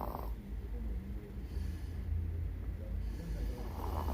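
A 16-year-old chihuahua snoring in deep sleep: one short, snorting snore breath at the start and another near the end, about four seconds apart, over a steady low rumble.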